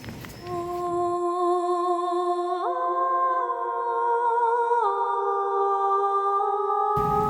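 Background music: a slow melody of long held notes, stepping up in pitch about two and a half seconds in and back down near five seconds.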